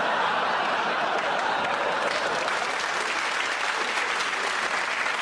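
Studio audience applauding after a punchline, a dense steady clapping.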